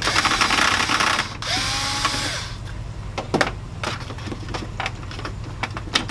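Cordless drill/driver running in two short bursts in the first two and a half seconds, the second with a whine that rises and then falls, as it backs a screw out of the printer's metal frame. After that come scattered light clicks and knocks of plastic parts and wires being handled.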